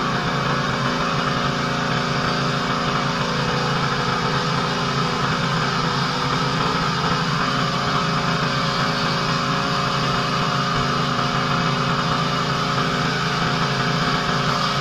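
Pressure washer running steadily: a constant engine hum under the broad hiss of the high-pressure water spray.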